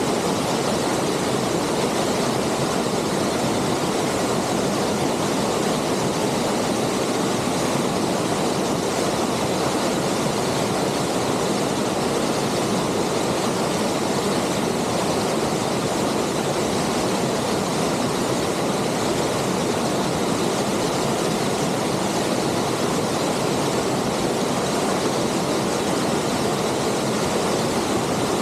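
Waterfall pouring steadily: an even, unbroken rushing, deepest in the low-middle range.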